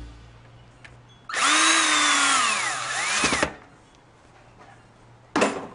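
Cordless drill-driver driving a screw into the voltage regulator on the back of an alternator. There are about two seconds of motor whine whose pitch falls as the screw draws tight, with a brief rise before it cuts off, then a short second burst near the end.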